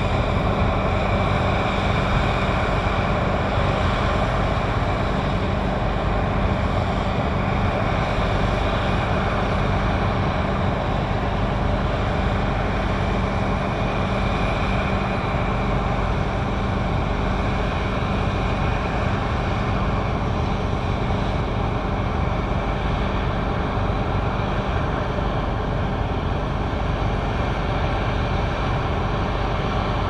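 Claas Lexion 780 TerraTrac combine harvester running steadily under load while harvesting, a constant drone of engine and threshing machinery.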